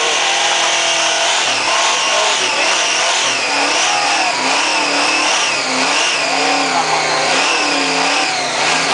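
Supercharged donk doing a burnout: the engine revs up and down at full throttle while the spinning rear tyres squeal. The squeal and the engine note rise and fall together, roughly once a second.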